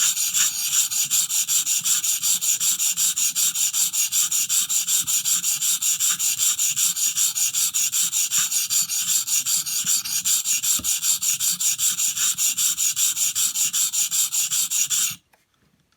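A knife blade being stroked back and forth against a 400-grit sharpening stone on a guided sharpener, raising a burr on the edge. It makes a fast, even scraping rhythm of several strokes a second, which stops abruptly about fifteen seconds in.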